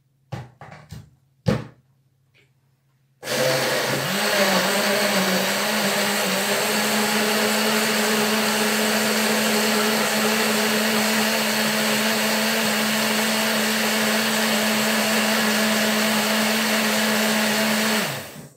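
Countertop blender: the jug is set on its base with a couple of clunks, then about three seconds in the motor starts and runs steadily at low speed, puréeing cooked vegetables in shrimp broth into soup. Its hum rises slightly a few seconds after starting and winds down when it is switched off near the end.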